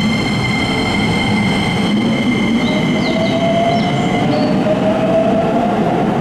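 Keikyu New 1000 series stainless electric train accelerating away from the platform: its IGBT-VVVF inverter and traction motors whine with a slowly rising pitch over the rumble of the wheels, and a set of steady high inverter tones fades out about four seconds in.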